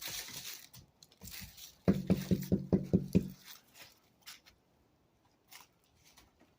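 A quick run of about seven knocks on a hollow surface, each ringing low, as it is tested for a void underneath. Before them come brief scraping and rustling.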